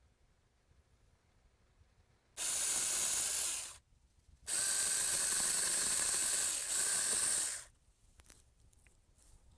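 Cordless 20 V mini electric chainsaw (Saker 4-inch) running on the trigger in two bursts, about a second and a half and then about three seconds, each starting and stopping sharply, as it cuts through a pepper plant's stem.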